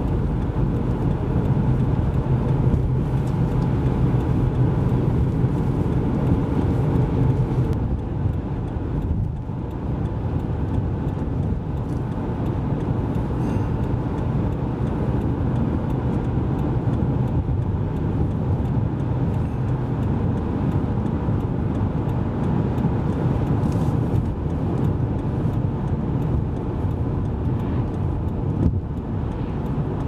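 Steady road noise of a car driving on dry pavement, tyre and engine hum heard from inside the cabin. It is slightly heavier in the low end for the first several seconds.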